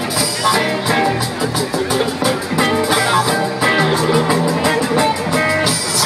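Live rock band playing an instrumental passage, with electric guitar over steady drum-kit beats, heard from the audience.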